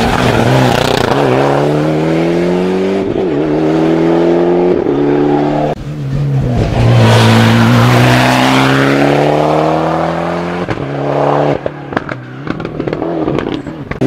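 Volkswagen Polo rally car's engine revving hard and climbing in pitch through gear changes as it drives past. The sound cuts off abruptly to a second pass about six seconds in, which climbs again. Near the end the engine dies away, with a few sharp cracks.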